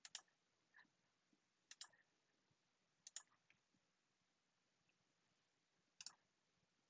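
Computer mouse button clicking faintly: four sharp clicks, each a quick press-and-release pair, one to three seconds apart, as sketch lines are selected.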